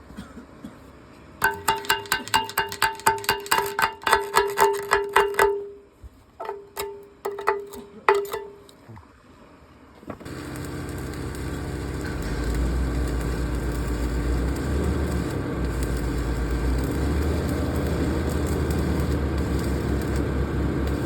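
Fast hammer blows on ringing steel, about four a second for several seconds, then a few more strikes. From about halfway an engine starts running and settles into a steady low rumble.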